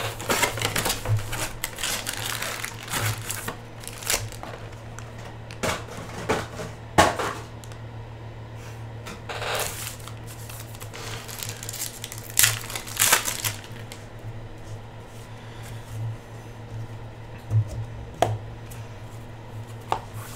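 A hobby box of foil trading-card packs being opened and handled by hand: cardboard scraping, foil wrappers crinkling and tearing, and cards being shuffled, in irregular rustles and bursts over a steady low hum.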